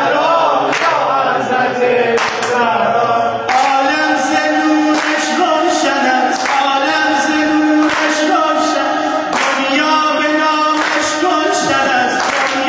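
A man singing a Shia devotional praise song through a microphone and PA, with sharp beats about every second and a half marking the rhythm.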